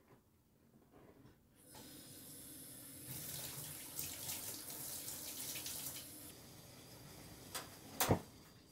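Water running from a kitchen tap into the sink, starting about two seconds in and loudest through the middle. Near the end, two sharp clacks, the second one the loudest sound.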